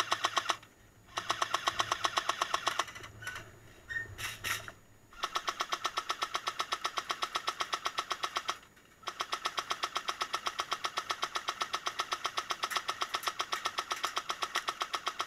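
Airsoft M60 support gun firing full-auto in long bursts, an even rapid rattle of about a dozen shots a second, broken by short pauses.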